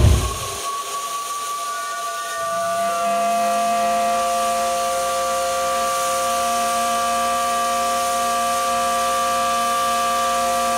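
A deep thud at the start. Then a multi-note steam whistle sounds a steady chord over hissing steam, its notes joining one after another over the first few seconds and then holding.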